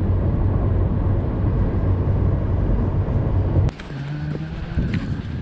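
Toyota car driving, heard from inside the cabin: a steady low engine and road hum. It cuts off suddenly about three and a half seconds in, giving way to a much quieter outdoor sound.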